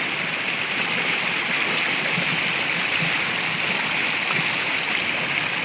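Steady rushing of a small mountain stream running over rocks.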